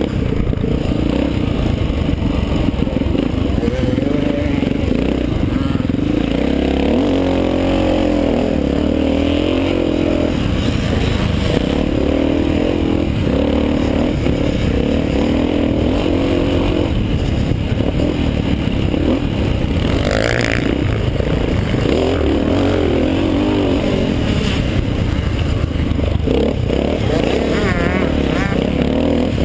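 Classic motocross bike's single-cylinder engine heard from on board, revving up and down as it is ridden hard round a dirt track.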